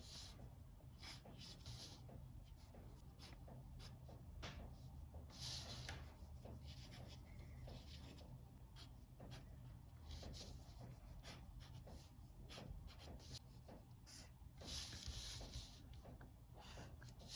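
Faint sketching strokes on paper: quick, irregular scratches, with longer shading strokes about five seconds in and again about fifteen seconds in. A steady low hum runs underneath.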